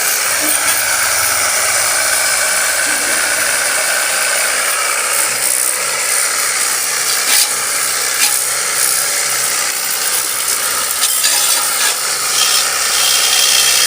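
Portable pressure washer gun running, its small pump whirring under a steady hiss of water spray as the jet washes down a motorcycle.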